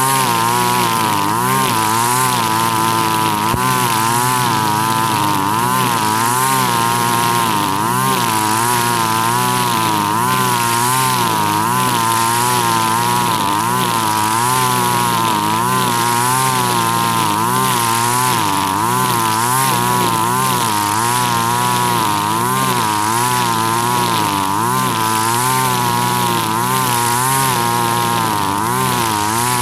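Husqvarna 542RBS backpack brush cutter's 42cc two-stroke engine running at high speed. Its buzz wavers up and down in pitch every second or so as the square nylon line swings back and forth through thick, tall grass.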